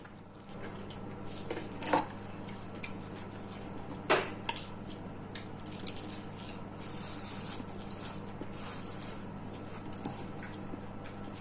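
Cutlery clinking and scraping against plates during a meal, with a few sharper clinks about two and four seconds in.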